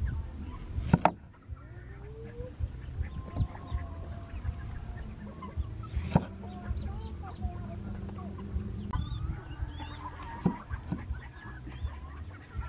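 Poultry clucking and calling in short wavering notes, with three sharp knocks spread through.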